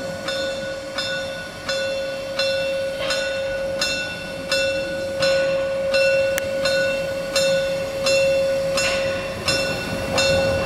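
Saxon IV K class narrow-gauge steam locomotive working steadily toward the camera, its exhaust chuffing in an even rhythm of about three beats every two seconds. A steady high tone runs underneath throughout.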